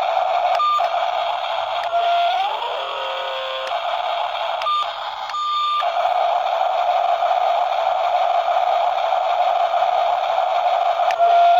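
Small electric gear motors of a remote-control toy excavator and dump truck giving a steady high whine with a hissy edge. The whine slides up and falters for a moment about two and a half seconds in. Short electronic beeps sound several times.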